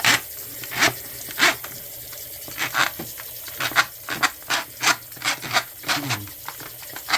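A series of short rasping scrapes, as of something being rubbed or scraped back and forth by hand, sparse at first and quickening to about two strokes a second after the middle.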